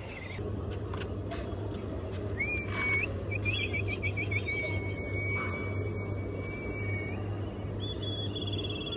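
Kites calling with high whistles: a short rising note, a quavering trill, then a long steady whistle, with a higher wavering whistle near the end. A low steady hum runs underneath.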